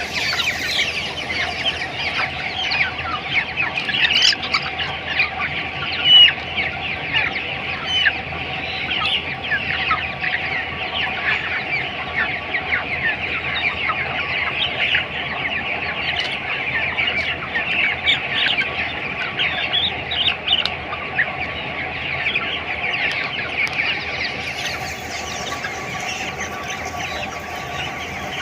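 A large flock of three-week-old broiler chickens calling continuously, many short overlapping cheeps and clucks at once, with one louder call about six seconds in. A faint steady hum runs underneath.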